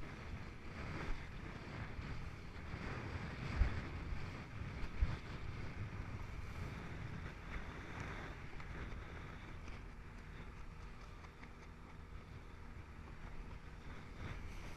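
Strong wind buffeting the microphone over rushing water on a sailing dinghy reaching fast, with two sharp low thumps about three and a half and five seconds in.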